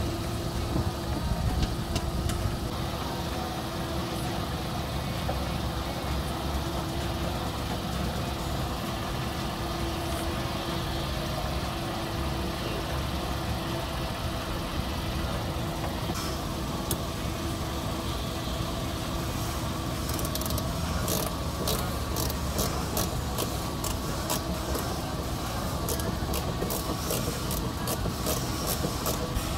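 Steady hum of an idling engine with several held tones. From about halfway through, quick light clicks and taps come from hand work with a screwdriver at the wheel arch.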